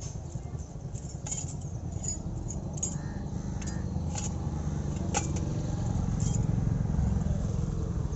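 Scattered light metallic clinks, about one or two a second and irregular, over a steady low rumble that grows a little louder in the second half.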